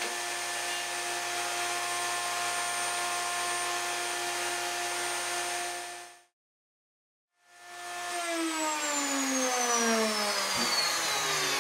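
Table-mounted router spinning a wing slot cutter bit at a steady speed, a steady whine. It cuts to silence about six seconds in; when the sound returns the router is winding down, its pitch falling steadily.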